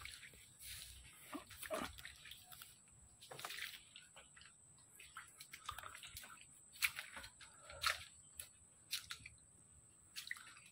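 Faint, irregular drips, small splashes and rustles in wet mangrove mud and water, with a few sharper clicks and scrapes now and then.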